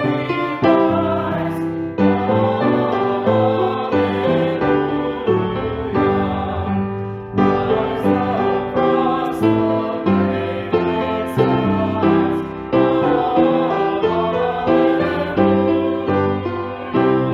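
Slow worship music on a keyboard: chords struck roughly once a second, each fading before the next.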